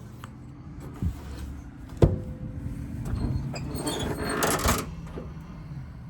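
A knock about a second in and a sharp metallic bang about two seconds in, then a rattling clatter around four to five seconds in, over a low steady hum.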